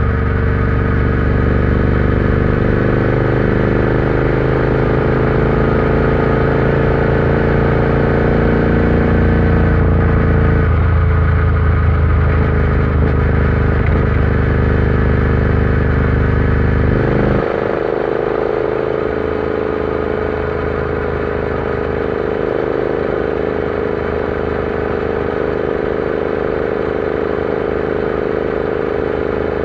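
Royal Enfield Interceptor 650's parallel-twin engine running on the road at a fairly steady speed. About two thirds of the way through, its deep low rumble drops away and it gets slightly quieter.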